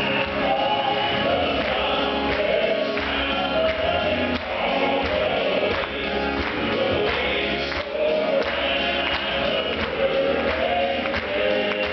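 Live southern gospel quartet of men singing in harmony over band accompaniment with a steady beat.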